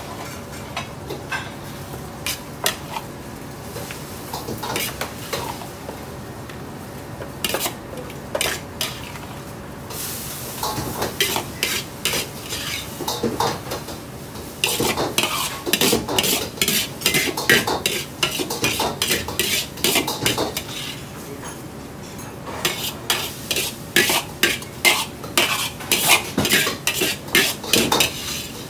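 A metal ladle scraping and clanking against a large 50 cm wok, in quick runs of strokes, as a stir-fry is scooped out and plated. A brief hiss comes in about ten seconds in.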